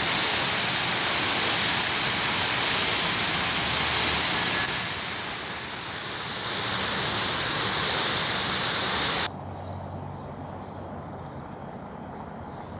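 Fountain water splashing with a steady loud hiss, with a brief high squeak about five seconds in. It cuts off suddenly a few seconds before the end, leaving quieter street ambience with a low hum.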